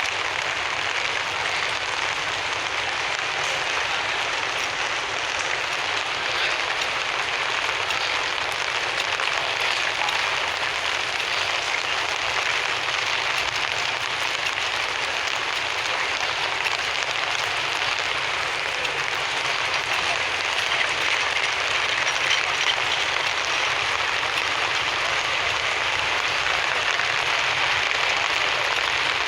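Steady rain falling, an even hiss that holds throughout.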